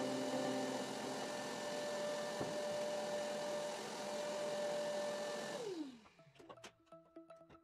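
Wet-and-dry canister vacuum cleaner with a stainless-steel drum running steadily, with a whine. It is switched off a little over five seconds in, and the motor's whine slides down as it winds down.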